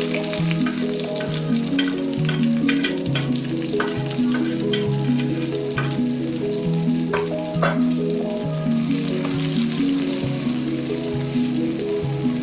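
Food frying in oil in a pan, a steady sizzle with sharp clicks now and then from stirring, under background music with a stepping melody.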